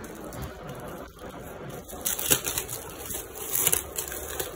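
Clear plastic packaging crinkling and crackling as it is handled and pulled open, with a few sharper crackles partway through.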